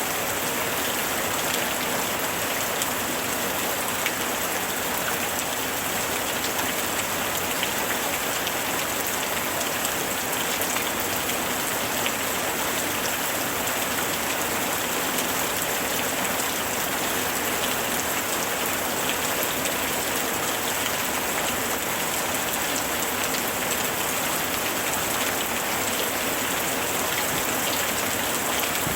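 Steady summer rain falling, an even hiss with many fine drop ticks on surfaces.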